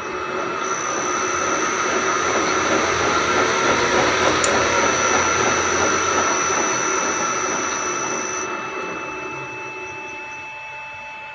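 AL960B lathe's spindle motor on its VFD, running with a steady mechanical whir and several high whining tones. It winds down from about eight seconds in, as the drive brakes it to a decelerated stop. A single sharp click sounds about halfway through.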